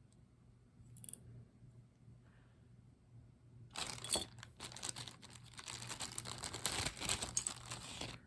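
Small plastic jewelry bag crinkling and rustling as it is handled, a dense crackle starting about four seconds in, after a faint click about a second in.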